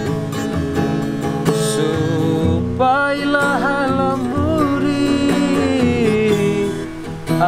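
Acoustic guitar picking a slow accompaniment. About three seconds in, a man's voice comes in singing long, wavering held notes over it, easing off near the end.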